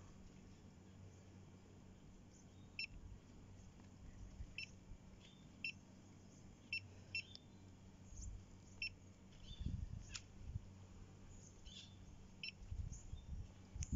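Short high electronic beeps from a surveying total station, about seven spread out, as its keys are pressed to take a distance reading. There are a few soft handling bumps near the end.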